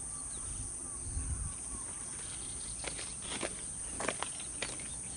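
Steady high-pitched insect chorus. A few sharp clicks and taps come irregularly in the second half.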